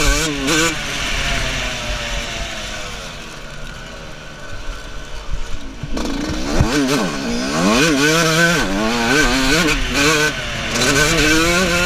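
A 125cc two-stroke motocross bike's engine, heard from the rider's helmet. It revs, eases off to a lower, quieter note for a few seconds, then from about six seconds in revs up and drops back again and again as the rider works the throttle.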